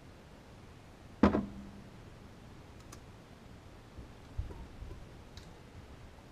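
A single drum hit on a drum kit, sharp with a short low ring, about a second in. A few soft low thumps follow around the middle, with faint ticks.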